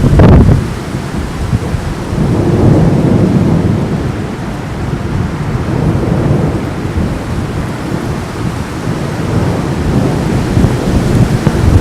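Thunder during a rainstorm: a sharp crack right at the start, then long rolling rumbles that swell and fade several times, over the steady hiss of rain.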